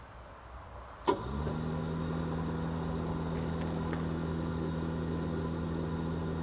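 A sharp pop, then the wood gasifier's electric blower spins up and runs with a steady hum, drawing air through the freshly lit gasifier to heat it up.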